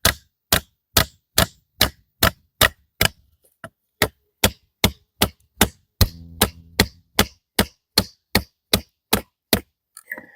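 Batoning: a wooden stick beating on the spine of a Scorpco JD2 folding knife to drive its blade through a thick stick. Sharp knocks come in a steady rhythm of about two and a half a second and stop near the end.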